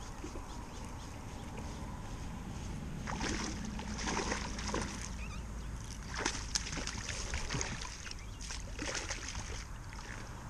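Water splashing in several short bursts as a hooked bass is brought to the side of a kayak and scooped into a landing net, over a steady wind rumble on the microphone.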